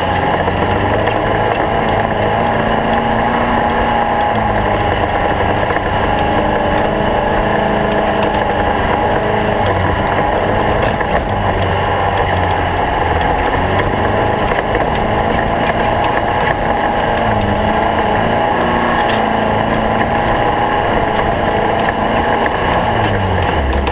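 Stock VW Beetle race car's air-cooled flat-four engine running hard, its revs rising and falling and dropping near the end, over wind and road noise.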